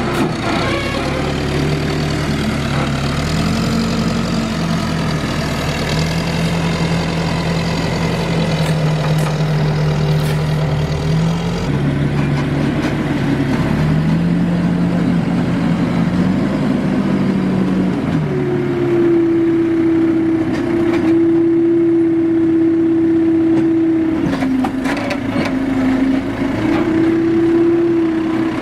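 Engines of a tractor and a vibratory plate compactor running while sand is spread and compacted. The engine note steps up and down in pitch several times and jumps higher about two-thirds of the way in, with scattered knocks near the end.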